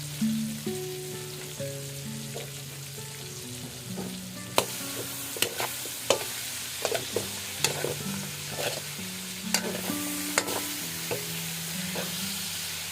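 Pork frying and sizzling in a pan while it is stirred. From about four seconds in, the utensil knocks sharply against the pan over a dozen times. Soft background music with held notes plays underneath.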